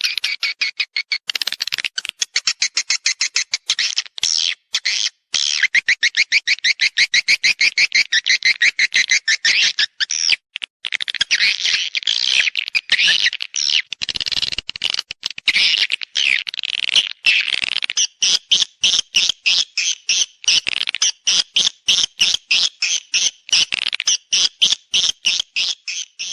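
Swiftlet mating call used as a lure sound: a fast chattering train of short clicks and chirps, about ten a second, settling in the second half into a steadier pulse of about four a second.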